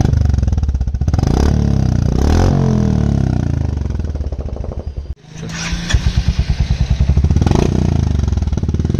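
Royal Enfield Hunter 350's single-cylinder engine running through a newly fitted aftermarket exhaust, with a slightly heavier note than stock. It is blipped about four times over a steady idle and drops out for an instant about five seconds in.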